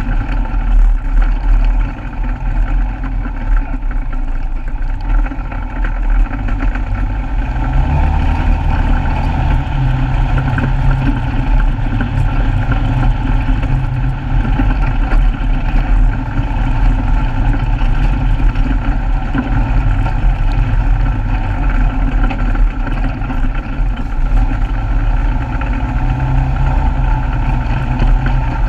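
Polaris RZR side-by-side's engine running as it drives along a dirt track, its note rising about eight seconds in and again near the end.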